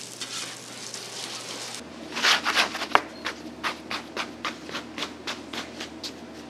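Gloved hands patting and pressing a long log of floured scallion dough on a work table, a quick run of soft slaps about three a second, starting about two seconds in. Before the pats there is a steady hiss.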